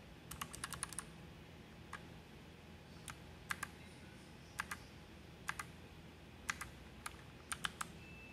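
Keys of a Rakk Lam-Ang Pro mechanical keyboard being pressed: a quick run of clicks, then single and paired clicks about once a second as the FN and Insert keys are pressed to step through its RGB lighting modes.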